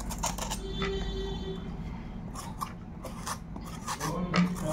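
Hand vegetable peeler scraping the skin off a bottle gourd, a run of short scraping strokes at irregular intervals.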